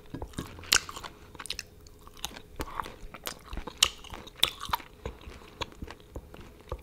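A person chewing dried seasoned squid close to the microphone: irregular short clicks and smacks of the mouth, about two a second.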